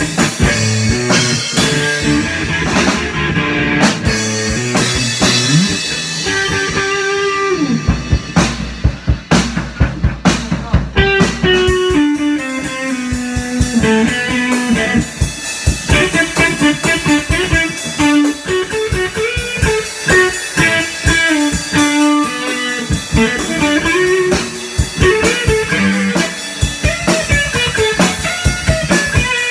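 Electric guitar and drum kit played live together by a two-piece band. Busy guitar note runs fill the second half over steady drumming.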